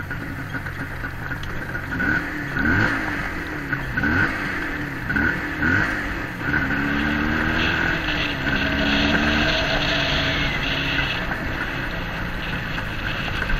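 A vehicle's engine running under way, revving up and down several times in quick succession, then holding a steadier pitch for a few seconds.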